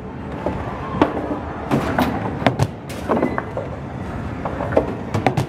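Hard balls of a skee-ball style alley game rolling up the lane and clacking into the scoring rings and return tray: about ten irregular sharp knocks over a steady rumbling arcade din.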